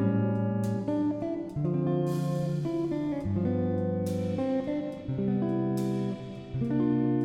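Background music: guitar playing chords that change about once a second.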